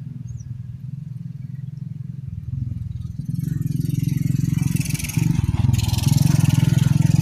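A motor engine running, a low steady rumble that grows louder about two and a half seconds in and again about five seconds in, with a rustling hiss over it from about three seconds on.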